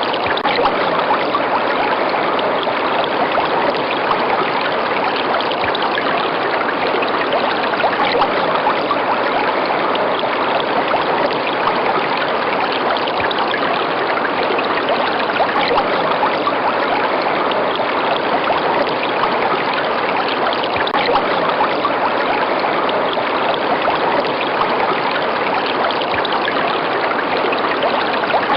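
River water flowing steadily over rocks, a constant rushing and trickling with no change.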